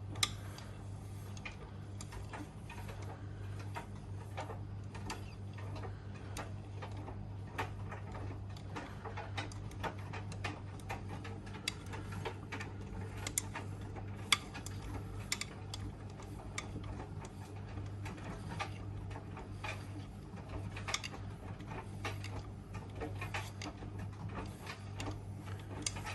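Miele W1 Active washing machine running: a steady low hum with frequent, irregular clicks and ticks from the turning drum.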